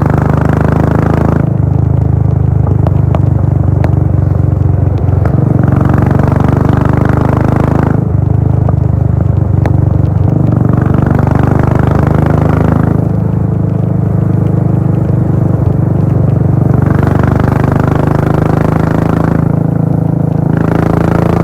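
Royal Enfield Bullet 500's air-cooled single-cylinder engine running loud through a Gold Star-style full-system exhaust at highway speed. The note is steady, and its brighter upper part swells and fades every few seconds.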